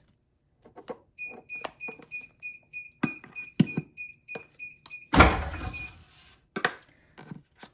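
Heat press timer beeping rapidly, about three short high beeps a second, to signal the end of the pressing time. A little over five seconds in there is a loud clunk with a short rush of noise as the press is opened, then a few clicks and knocks.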